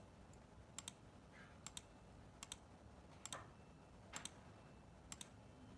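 Computer mouse clicking: six quick double clicks, each a press and release, about once a second.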